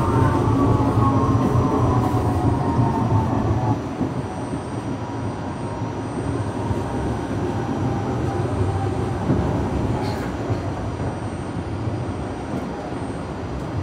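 R68A subway car running, with the howl of its traction motors sliding down in pitch over a steady rumble of wheels on rail as the train slows toward a station. About four seconds in the howl and rumble drop back, and a fainter whine carries on.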